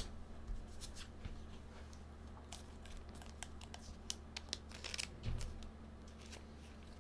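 Sports trading cards being handled: faint scattered clicks and rustles over a low steady hum.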